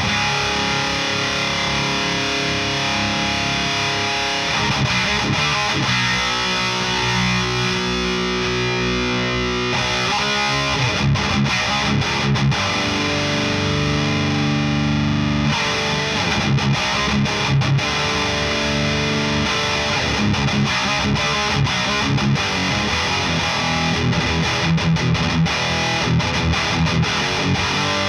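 Distorted electric guitar played through a Mesa Single Rectifier amp driven by a boost pedal. Held, ringing chords alternate with choppy, fast-picked rhythm riffs.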